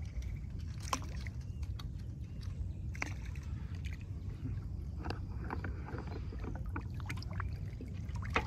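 Small splashes and sloshing of water as a fishing net is hauled and handled by hand in shallow water, with scattered short clicks over a steady low rumble.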